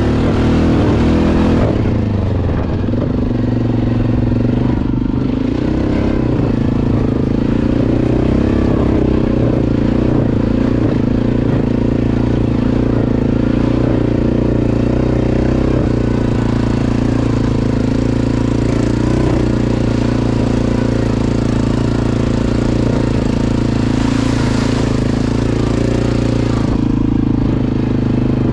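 ATV engine running steadily at a fairly constant speed. A brief rushing noise rides over it near the start and again about 24 seconds in.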